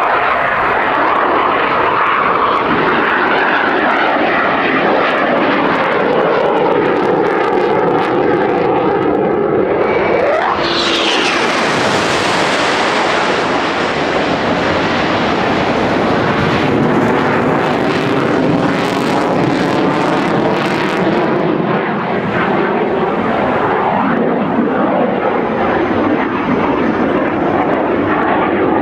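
Loud jet noise from a Eurofighter Typhoon's two Eurojet EJ200 turbofans as it climbs and banks overhead, with a sweeping, phasing quality. About ten seconds in, the sound turns harsher and brighter.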